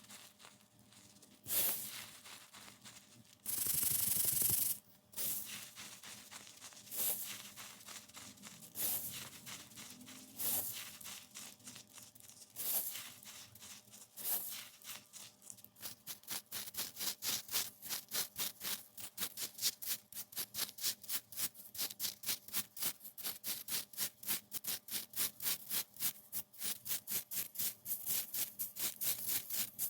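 Crunchy baked baking soda being crushed: single crunches every second or two, with one longer crumbling crunch about four seconds in, then from about halfway a fast steady run of crunches, about three a second.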